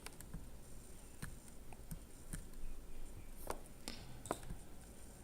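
Quiet room tone with a handful of faint, short clicks scattered through it.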